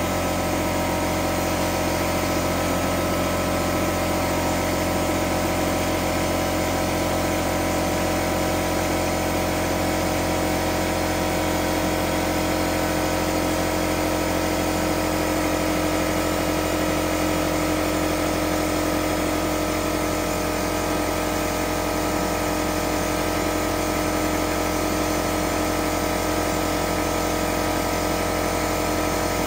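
Air compressor running steadily, its motor and pump giving a constant pitched hum over a hiss.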